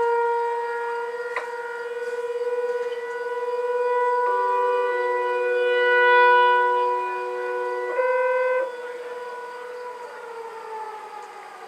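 Outdoor fire siren sounding a steady wail, winding down and falling in pitch near the end. Partway through, sequential paging tones from a radio scanner step through several pitches for a few seconds.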